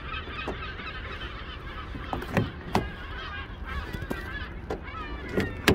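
Several sharp clicks from a 2011 Renault Scenic's keyless-entry door handle and lock as a hand grips and releases it, the loudest near the end. Birds call continually in the background.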